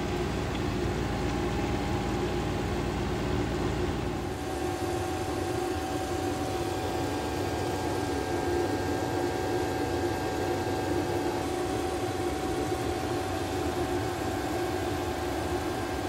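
Autoterm 4D diesel air heater running at maximum output: a steady mechanical hum with a couple of steady tones. The lower rumble drops away about four seconds in.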